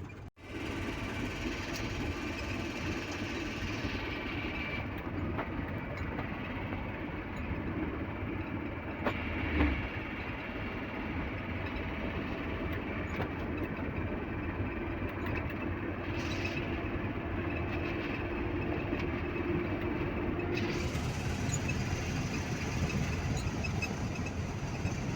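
Steady running rumble of a motor vehicle on the move, with one brief knock about ten seconds in.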